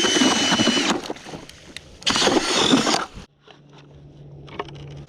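Power ice auger running at full speed with a steady motor whine, cutting off about a second in, then running again for about a second, as a hole is bored or cleared through the ice.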